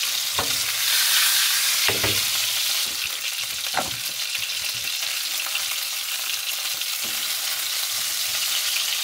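Flour-coated chicken breast cutlets sizzling steadily as they fry in hot fat in a frying pan, with a few knocks in the first four seconds as the pan and cutlets are handled.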